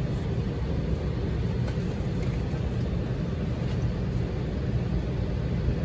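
Steady low rumble of an Airbus A320's cabin. A few faint rustles from the glossy magazine's pages being turned lie over it.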